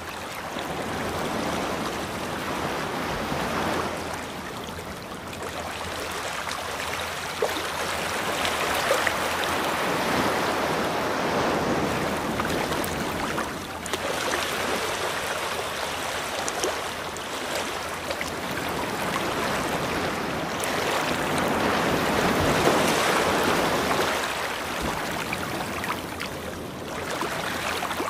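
Ocean waves washing ashore: a steady rushing surf that swells and eases every few seconds.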